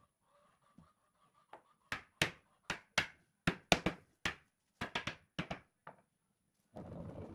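Wooden mallet striking a wooden rail, about a dozen sharp knocks in quick irregular succession, seating the rail down onto the uprights of a pallet-wood chair frame. Near the end comes a brief rough rustling noise.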